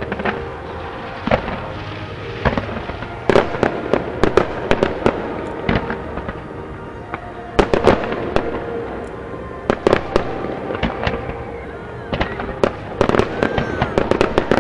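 Fireworks display: aerial shells going off in rapid volleys, many sharp bangs bunched into clusters every few seconds with quieter stretches between.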